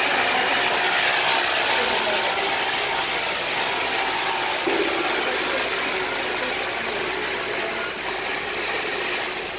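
Steady machinery noise from a pallet stretch-hood packaging line with its roller conveyors, a constant hiss-like drone with faint steady tones beneath, easing off a little toward the end.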